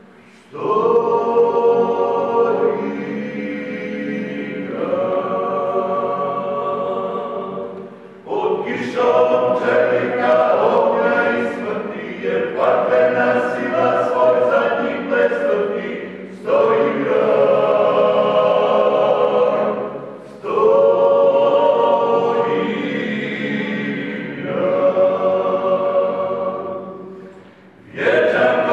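Men's folk choir of pučki pivači singing a cappella, in long sung phrases with short pauses for breath between them.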